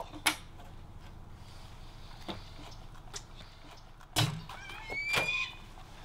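Latch and door of a metal bird transport box being fastened: a sharp metallic click just after the start, a lighter tick, then a heavier thud about four seconds in, followed by a short rising squeak and another click.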